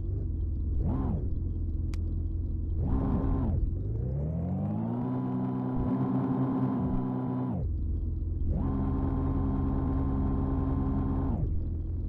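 Heavy-vehicle engine revving: it gives two short blips, then twice climbs in pitch, holds a steady high run for a few seconds and drops back to a low idle. It stops abruptly at the end.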